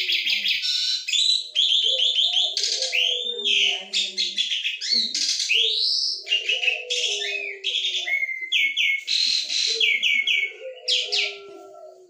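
Caged Asian pied starling singing hard and without pause: a chattering jumble of rapid trills and rising and falling whistled notes, with lower, voice-like notes woven in, dying away near the end.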